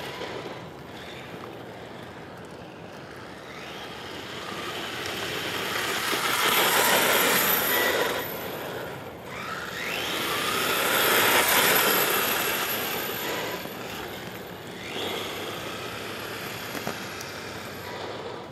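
HobbyKing Rattler 1/8-scale 4WD buggy running on a 2S LiPo: its brushless motor whines and its tyres hiss on the asphalt as it makes high-speed passes, loudest about seven and eleven seconds in, with the whine rising and falling in pitch.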